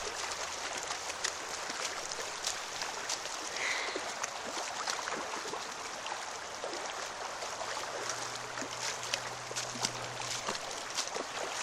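Steady rush of flowing river water, with scattered small clicks and splashes.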